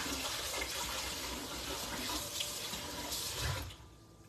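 Kitchen faucet running in a steady stream, then turned off near the end.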